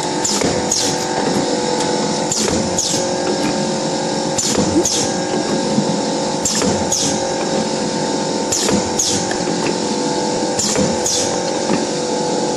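Wire-cut cookie depositing machine running: a steady motor hum, with a pair of short high hisses about every two seconds as it deposits and cuts each row of dough.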